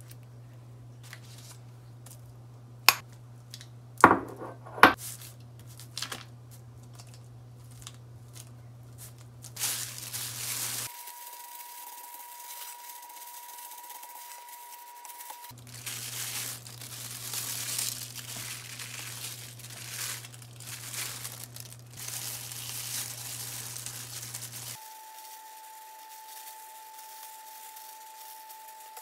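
Knife knocking sharply three times on a wooden cutting board while an avocado is sliced. Then plastic food-prep gloves crinkle and rustle in stretches as rice is spread on a seaweed sheet and fillings are laid on.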